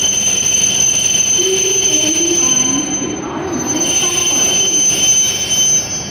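W7 series Shinkansen train rolling slowly into the platform as it arrives, with a steady high-pitched whine and squeal from wheels and brakes over lower wavering tones. The sound drops in loudness near the end as the train slows to a crawl.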